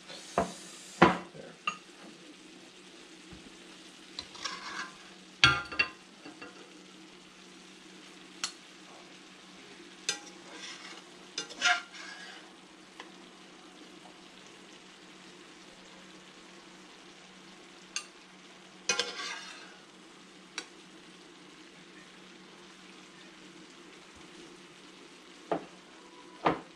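A metal utensil scraping and clinking in a cast-iron skillet and against ceramic bowls as food is dished out, in scattered short strokes with long gaps, over a faint steady sizzle.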